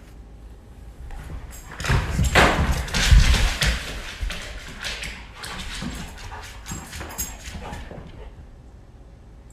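A goldendoodle's paws and claws clicking and thudding on a hardwood floor as it sprints away and races back. The loudest scrabble comes about two to four seconds in, followed by a run of quick clicks that fades near the end.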